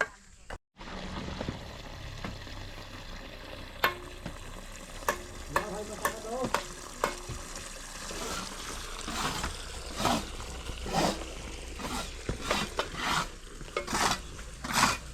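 A hand tool scraping through a gritty building material such as mortar or sand, in repeated strokes about once a second over the second half. Earlier there is a row of sharp knocks about every half second.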